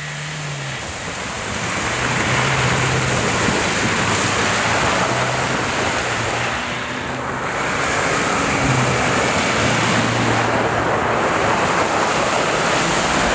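Off-road vehicles, among them a JAC T8 pickup, driving through deep slush and wet snow. The tyres churn and throw up spray as a steady rushing noise, with engine hum underneath that rises and falls.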